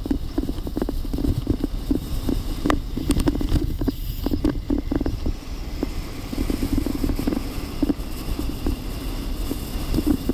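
Natural-track luge (rodel) sliding fast down a packed-snow track: a steady rumbling scrape of the runners, with frequent knocks and rattles as the sled bumps along.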